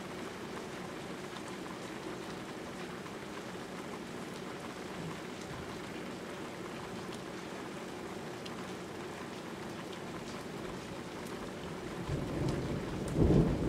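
Steady rain falling during a thunderstorm, with a low rumble of thunder rising near the end.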